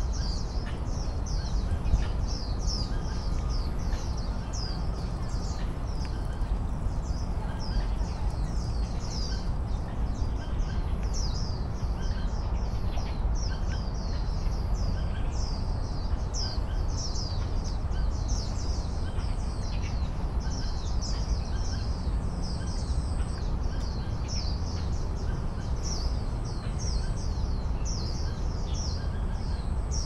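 Many small birds chirping continuously, quick high chirps overlapping one another, over a steady low background rumble.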